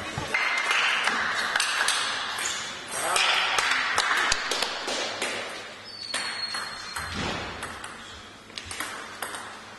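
Table tennis ball bouncing with light ticks on the table and floor between points, several quick ticks about four seconds in.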